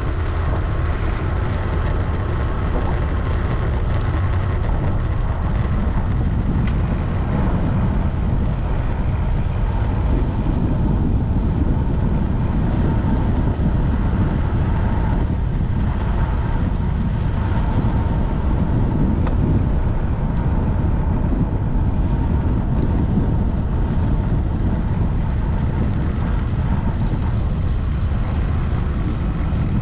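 Steady low rumble of wind buffeting the microphone of a bicycle-mounted camera, with the tyres rolling on asphalt.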